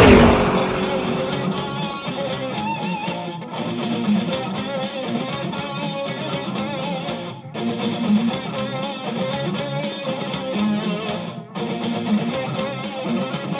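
Guitar-driven music with strummed guitar, opening with a loud crash-like burst.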